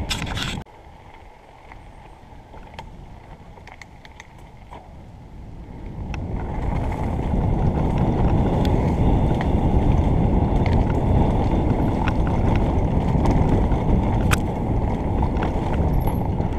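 Mountain bike riding a dirt forest trail, heard from a helmet-mounted camera: a steady rumble of tyres and wind on the microphone, with scattered clicks and rattles from the bike. It is quieter for the first few seconds while rolling slowly on a paved road, and grows louder about six seconds in as the bike speeds up on the dirt.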